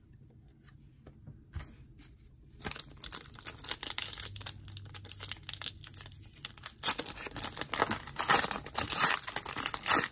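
Foil wrapper of a trading card pack being torn open and crinkled by hand. The dense crackling starts about two and a half seconds in and keeps going.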